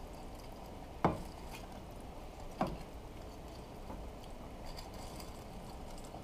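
Wooden spoon knocking against the side of a stainless steel pot while stirring noodles into broth. Two sharp knocks about a second and a half apart and a fainter third, over a steady low background noise.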